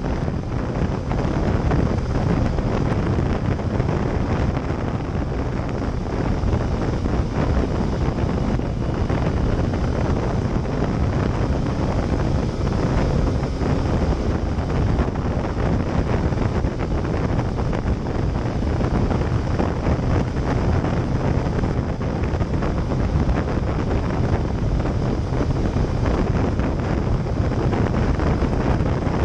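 Steady wind rushing over the microphone of a camera riding on a Yamaha Fazer motorcycle at road speed, with the bike's inline-four engine and its tyres on the wet road running underneath.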